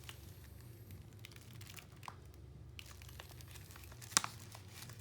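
Firework packaging being handled: plastic wrap crinkling with scattered light taps and knocks, and one sharper click about four seconds in, over a steady low hum.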